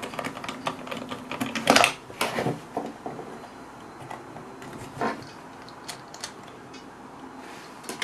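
Small clicks and taps of a screwdriver working a T9 Torx screw out of a Dyson V10 battery pack's plastic case, and of the pack being handled. The sharpest clicks come about 2 seconds in and again about 5 seconds in.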